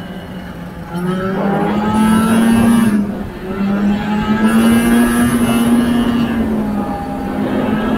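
Vintage two-stroke snowmobile engine under way, opened up about a second in, eased off briefly around three seconds, then pulling steadily again.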